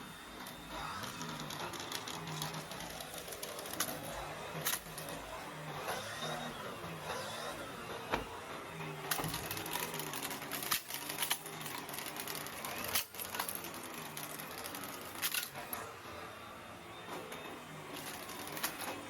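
Henry vacuum cleaner's small motor running steadily, with scattered clicks and knocks.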